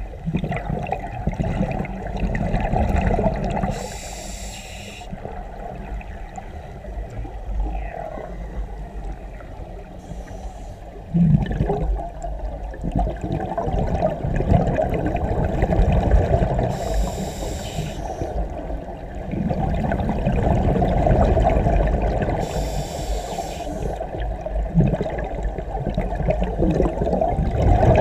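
Scuba diver breathing through a regulator underwater: a short hiss on each inhalation, three times several seconds apart, with the bubbling of exhaled air in between.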